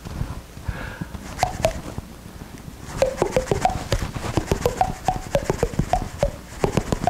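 A rapid series of short hollow clicks and pops, sparse at first and coming several times a second from about three seconds in.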